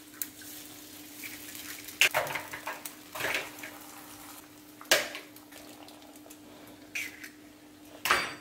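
Eggs being cracked with a knife and dropped one by one into hot oil in a frying pan: a sharp tap on the shell every couple of seconds, each followed by a short wet splash and sizzle as the egg lands.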